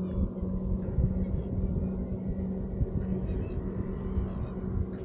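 A boat motor humming steadily at one pitch, with gusty wind rumble on the microphone.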